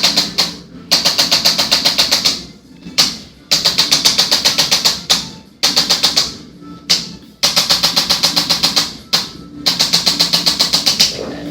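Rapid, evenly spaced mechanical tapping from a handheld percussive instrument working on the shoulder. It comes in about five bursts of roughly a second and a half each, at around nine taps a second, with short pauses between them.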